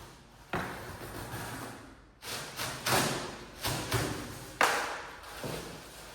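Several irregular knocks and thuds, each trailing off in a short scraping hiss. The loudest comes about four and a half seconds in.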